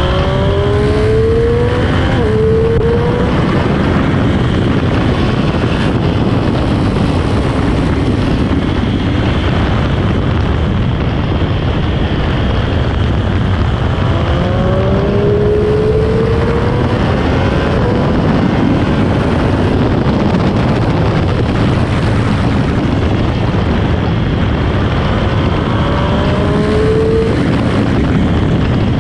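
Sport motorcycle engine heard from on board, its note rising as it accelerates three times, over a steady rush of wind.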